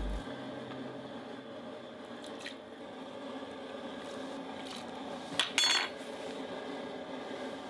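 Cooking handling sounds: utensils clinking against dishes over a steady low background, with a few single clicks and a louder quick cluster of clinks about five and a half seconds in.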